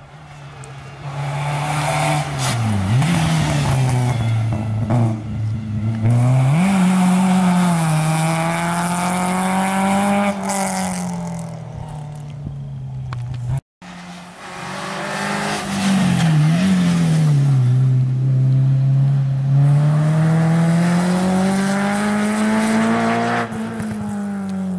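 Two Renault Clio rally cars pass one after the other, each dropping its engine pitch as it brakes and downshifts for a bend, then revving hard as it accelerates away, with the pitch climbing and falling through upshifts. The sound cuts off abruptly about halfway, between the two cars.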